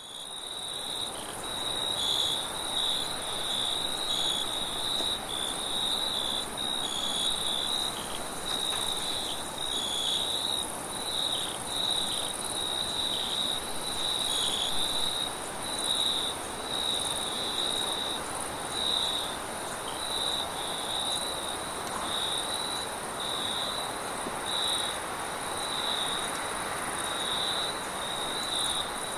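Crickets chirping steadily in a chorus of rapid, pulsed high trills, over a soft, steady rush of wind.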